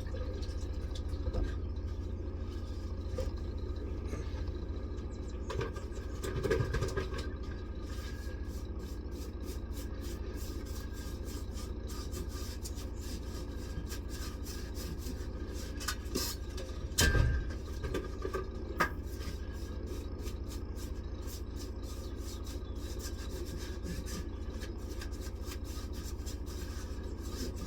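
Tyre-fitting soap being brushed onto a tyre's beads: a repeated rubbing and scraping, with a few louder knocks about six and seventeen seconds in, over a steady low hum.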